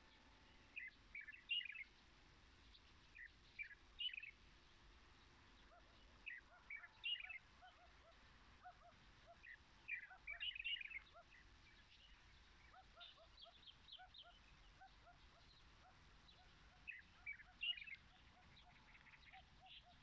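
Wild birds calling: clusters of quick, high chirps every two to three seconds, with a fainter, lower short note repeated evenly in the background from about eight seconds in.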